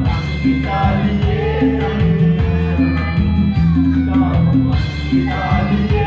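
A karaoke song playing loud over a repeating bass line, with a voice singing along into a microphone and one note held for about a second in the middle.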